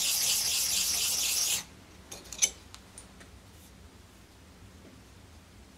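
An ice auger blade being honed on a sharpening stone in quick rasping back-and-forth strokes that stop abruptly about a second and a half in. A few light clicks and one sharp clink follow as the steel is set down and handled.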